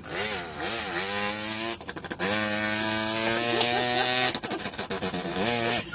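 A person imitating a Zanella 50cc moped engine with his mouth: two quick rising revs, then a steady buzzing drone held at one pitch, broken by short stuttering gaps about two seconds in and again near the end.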